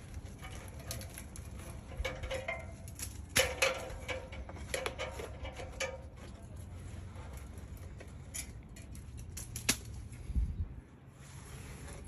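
Hands rustling and scraping debris out of a rain gutter, busiest in the first half, with a few sharp clicks and knocks later on.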